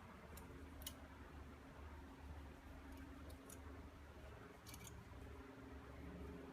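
Faint, short clicks of small pistol parts being handled, about six spread through, over a steady low hum.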